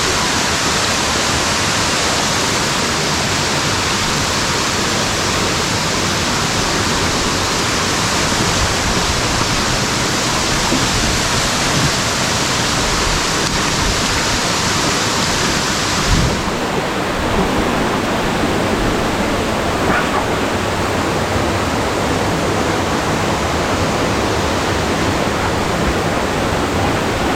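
Waterfall rushing: a loud, steady sound of falling water. About sixteen seconds in it turns duller, losing its hissing top.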